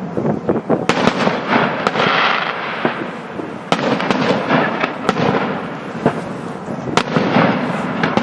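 Fireworks crackling densely and without a break, with a few sharper bangs standing out above the crackle, about a second in, twice more in the middle and once near the end.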